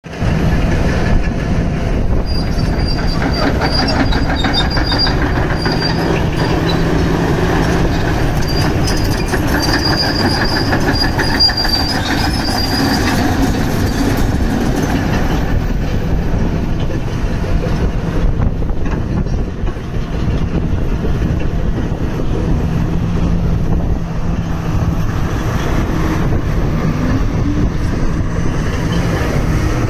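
New Holland Kobelco E385C hydraulic excavator's diesel engine running steadily at idle, with a thin high whine coming and going through the first half.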